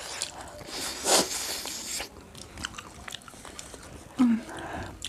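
Biting into and chewing crispy battered fried chicken close to the microphone, with one loud crunch about a second in followed by quieter chewing and small crackles.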